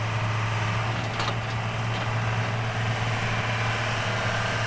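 Excavator's diesel engine running steadily, a constant low hum with an even drone above it.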